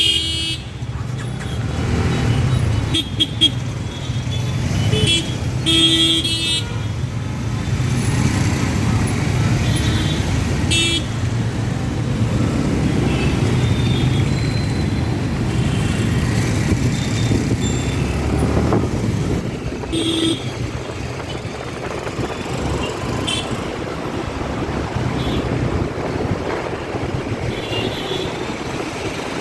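Heavy city road traffic: a steady rumble of engines and tyres, with short horn toots from surrounding vehicles popping up every few seconds.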